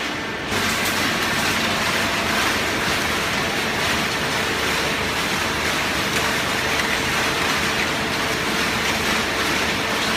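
Automatic cardboard baler running: a steady mechanical rush with a faint hum under it, getting louder about half a second in.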